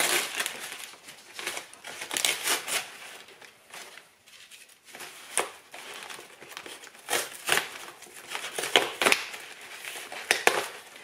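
Packing material crinkling and rustling in irregular bursts as a mail-order plant is unwrapped from its packaging, with a quieter pause about four seconds in.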